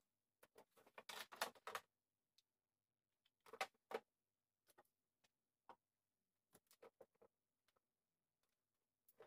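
Faint clicks and taps of small makeup items and plastic organizer pieces being picked up and set down, a quick run of them in the first two seconds and two sharper knocks near the middle, then scattered light ticks.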